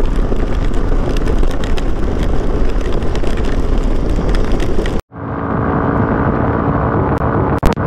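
Riding noise from a Hero Xpulse 200 single-cylinder motorcycle: the engine under heavy wind buffeting on the microphone. It cuts off abruptly about five seconds in and gives way to a steadier engine hum, with a couple of clicks near the end.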